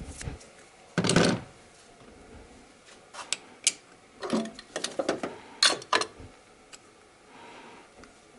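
Irregular clicks and knocks of a hand tool and metal parts being handled on a VAZ-21126 engine's cylinder head as the loosened head bolts are undone by hand. There is a louder rustling knock about a second in, then scattered sharp clicks.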